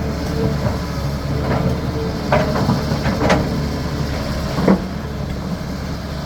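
CAT 320D excavator's diesel engine running steadily under work, with several sharp knocks and clanks from the digging and loading, the loudest about three-quarters of the way through.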